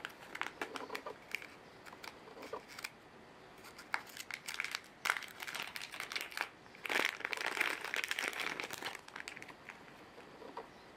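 Clear resealable plastic bag crinkling and rustling in the hands as it is opened and a cable is pulled out, in irregular bursts with sharp crackles, loudest in the middle.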